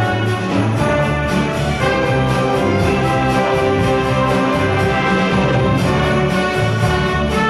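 Orchestra playing a Christmas piece, with the brass section (trumpets and trombones) leading, over a steady beat of sleigh bells that drops out for a few seconds in the middle.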